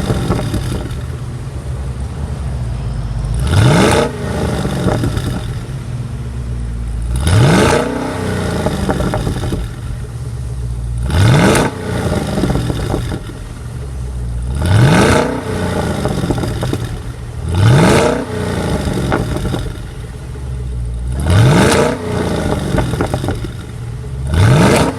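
Holden Commodore SSV Redline's 6.2-litre V8 being free-revved while parked: about seven short blips, roughly every three and a half seconds, each a quick rise in pitch that drops back to idle.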